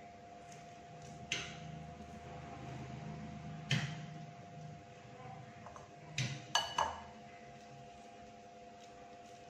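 Boiled quail eggs being peeled by hand over a ceramic bowl: a few sharp clicks and clinks of shell and egg against the bowl, with a quick cluster of three about six and a half seconds in. A faint steady hum runs underneath.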